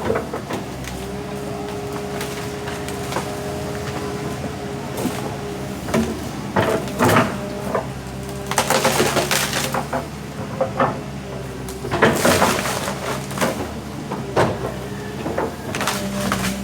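Backhoe's diesel engine running steadily while tree wood cracks and splinters several times as the machine crushes the tree. The loudest crashes come near the middle and again about twelve seconds in.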